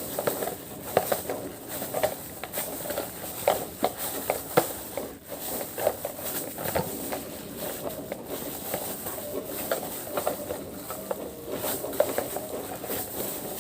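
Homemade slime being squeezed and kneaded by hand, giving irregular sticky clicks and small pops.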